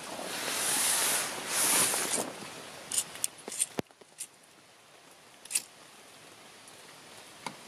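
A rush of rustling handling noise for the first two seconds, then a few light clicks, and about five and a half seconds in the sharp strike of a disposable lighter as it is lit to light a brass alcohol stove burner.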